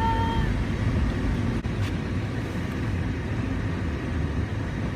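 Steady low rumble of a car's engine and road noise, heard from inside the car.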